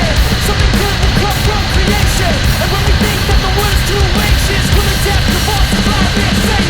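Loud hard rock music with singing.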